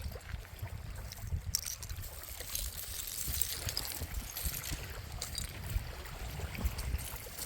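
Small waves washing and trickling on the shore, with a low wind rumble on the microphone.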